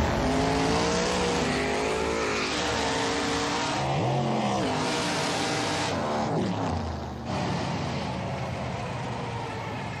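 Two nitrous-fed drag cars, one a big-block Chevy-powered 1989 Pontiac Firebird, running a street drag race at full throttle. The engine pitch climbs and then drops at each upshift, about four and six seconds in, and the sound eases off a little as the cars pull away.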